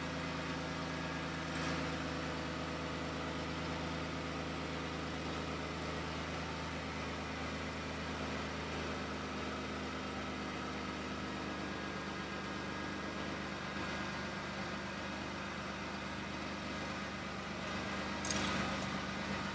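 2013 Dodge Grand Caravan's 3.6-litre V6 idling steadily, run just after a new exhaust flex pipe and centre silencer were fitted to check for exhaust leaks. A few light clicks near the end.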